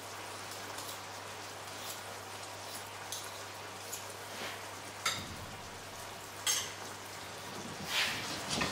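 Frying pan of turbot in sauce simmering over low heat with a steady, soft sizzle. A few sharp clicks of metal spoons come about five and six and a half seconds in, and there is more clattering near the end.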